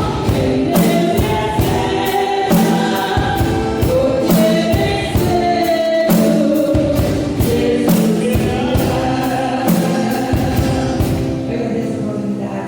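Gospel song with a choir singing over a band with drums, the snare drum sitting low in the mix. The drum hits stop about eleven seconds in, and the singing and music begin to fade.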